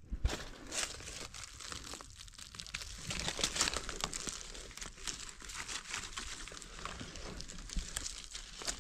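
Dry fallen leaves rustling and crackling as someone moves through the leaf litter, with many small crisp clicks.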